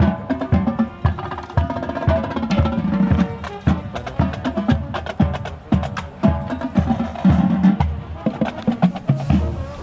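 Marching band playing: wind instruments sound sustained notes over busy drumline percussion.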